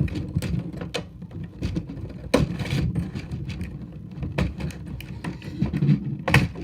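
Hands handling small plastic Beyblade parts: irregular clicks and taps, with a brief rustle about two and a half seconds in.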